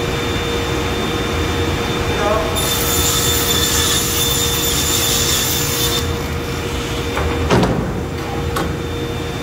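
Sliding table panel saw running with a steady motor whine, its blade cutting through a plywood sheet with a bright hiss from about two and a half to six seconds in, then spinning free. A short thump comes about seven and a half seconds in.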